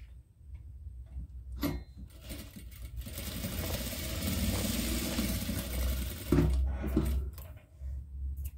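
Sewing machine stitching steadily for a few seconds as it topstitches fabric over a zipper end, then stopping with a couple of sharp knocks. A few small clicks near the end.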